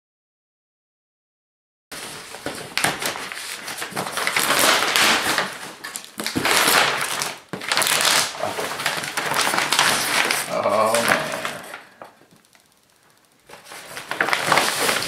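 Brown kraft paper wrapping being torn and crumpled off a cardboard box, a loud uneven crackling. It starts after about two seconds of silence, pauses briefly near the end, then starts again.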